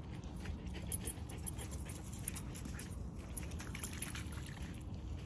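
A dog panting, over a steady low rumble.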